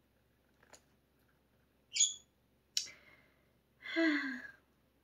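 A few short sounds over quiet room tone: a brief high chirp from a pet cage bird about two seconds in, a sharp click a moment later, then a short sighing vocal sound that falls in pitch.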